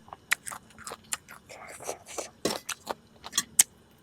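Mukbang eating sounds: a fast, irregular run of sharp clicks and crackles from food being handled and bitten up close to the microphone.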